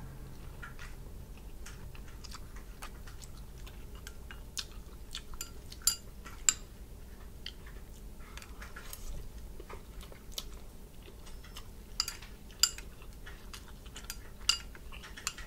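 Close-up eating of spicy Korean noodles: wet chewing and mouth clicks, with sharp clicks of chopsticks against a hand-held bowl. A few louder clicks stand out near the middle and toward the end.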